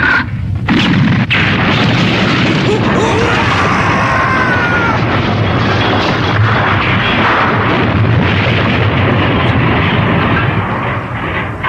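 Animated sound effects of a long explosion and rumbling collapse, a loud, steady roar of blasts and crumbling that eases slightly near the end.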